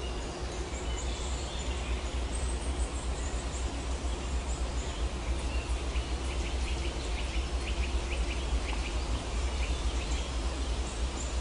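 Outdoor ambience: small birds chirping in short repeated calls, a run of them about halfway through, over a steady low rumble.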